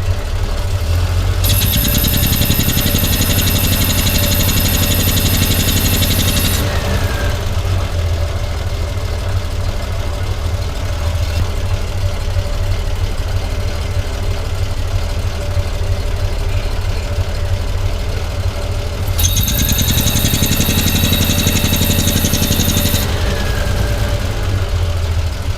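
Triumph TR5 straight-six engine running steadily at idle. Twice a high, steady whine-hiss joins it, once for about five seconds near the start and again for about four seconds near the end.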